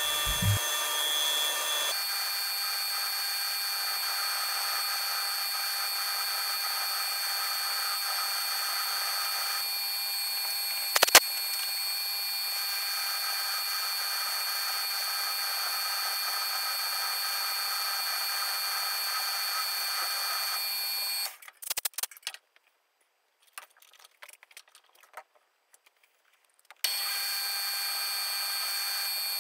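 Metal lathe running steadily, with a whine of several fixed tones, while a twist drill in the tailstock chuck bores into a spinning steel rod. There is a sharp click about halfway through. The machine stops about two-thirds of the way in, leaving a few scattered clicks and knocks, then runs again near the end.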